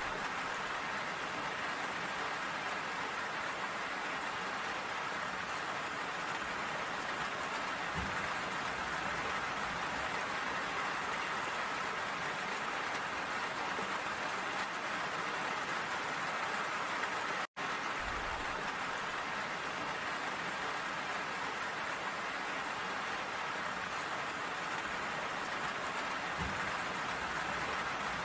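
Steady rain falling, an even hiss with no let-up; the sound cuts out for an instant about two-thirds of the way through.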